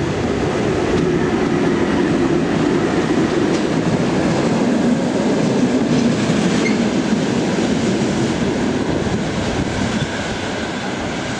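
A train headed by a VL10U electric locomotive passing close at speed. The wheels on the rails make a steady, loud running noise that eases slightly near the end.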